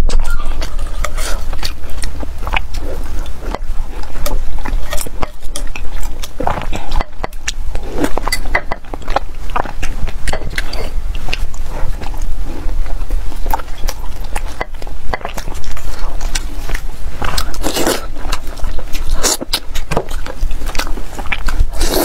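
Close-miked eating sounds: a person biting and chewing braised pork and rice, with many quick, irregular mouth clicks.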